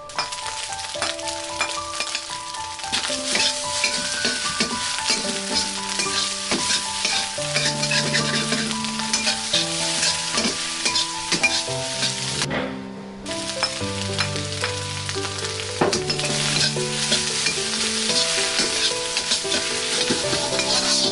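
Shrimp fried rice sizzling in a hot wok as it is stirred and tossed, a steady hiss full of small scraping ticks. The sizzle drops out briefly a little past halfway.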